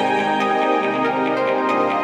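Background music: a steady, sustained instrumental track.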